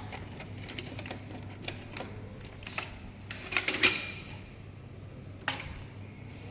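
Scattered clicks and rustling from handling, with a louder clatter about three and a half seconds in and a sharp click about five and a half seconds in.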